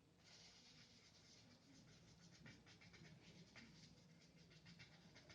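Faint, quick scratching of a paintbrush working thick gouache paint: a dense run of small brush strokes.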